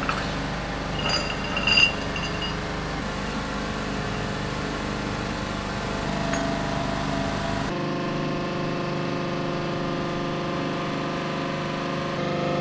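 Hydraulic press's pump motor running with a steady hum. About one to two seconds in, a steel square on the steel plate gives a short ringing metal clink, the loudest moment. About eight seconds in the sound changes abruptly and the low hum drops out.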